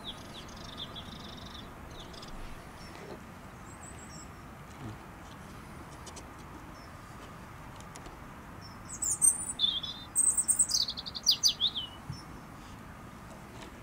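Small wild songbirds in open countryside: a few faint high chirps at the start, then a loud burst of song about nine seconds in, quick notes that fall in pitch over some three seconds, over a steady faint background hiss.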